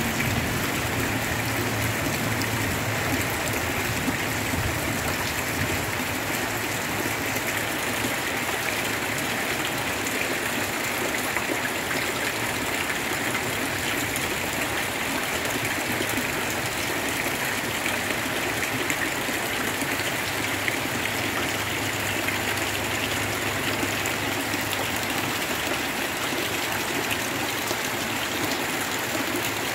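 Heavy rain pouring onto shallow floodwater: a steady, even hiss of rain hitting water.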